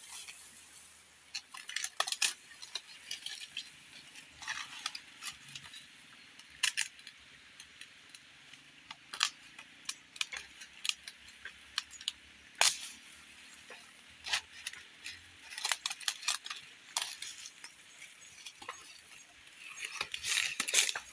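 Dry bamboo leaves and twigs crackling and snapping in irregular clicks as someone moves over leaf litter, with a dense burst of rustling and crackling near the end as leafy bamboo stems are grabbed and pulled.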